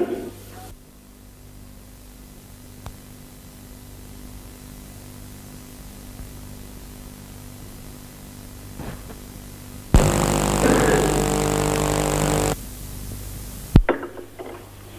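Orchestral music cutting off right at the start, then the low steady hum of an old broadcast soundtrack. About ten seconds in, a loud buzz with a high steady whine comes in suddenly, lasts about two and a half seconds and stops abruptly. A sharp click follows near the end.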